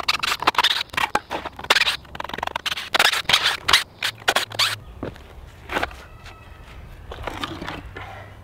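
Cordless drill backing screws out of a wooden concrete form in short runs, with rattling and scraping as the form boards come loose from the cast concrete lid. A short squeak about six seconds in.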